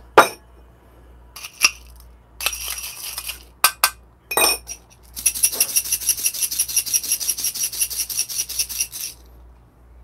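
Small hard clinks and rattles of coffee beans, glass vials and a stainless dosing cup being handled. About halfway through comes a quick, even rattle of roughly six strikes a second that lasts about four seconds.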